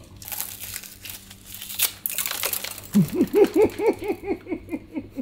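Plastic wrapping on a spool of welding wire crinkling as it is cut and pulled open. About three seconds in, a man laughs in a run of short 'ha's that fade out.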